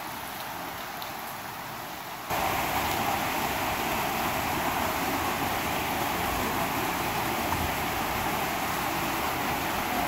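Steady rush of water from a waterfall and shallow stream, with no words over it. It gets abruptly louder about two seconds in and then holds even.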